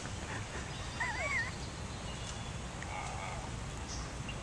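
Waterfowl giving one short wavering call about a second in, faint over a low steady background rumble.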